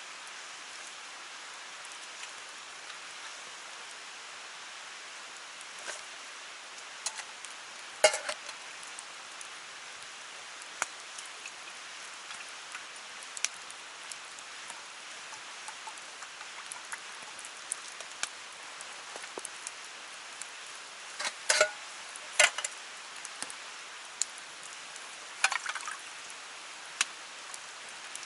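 Steady rush of a clear stream, with scattered sharp clicks and knocks; the loudest comes about eight seconds in and two more about twenty-two seconds in.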